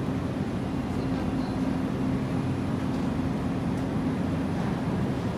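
Steady low hum of supermarket machinery, such as refrigerated display cases and ventilation, with a few steady low tones and no change throughout.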